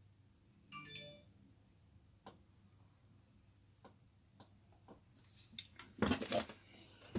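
Hands handling a sheet and papers on a craft desk: a few faint taps and clicks, then from about five and a half seconds in a louder rustle and clatter as the sign is gripped and moved. About a second in there is a brief chime of a few clear tones.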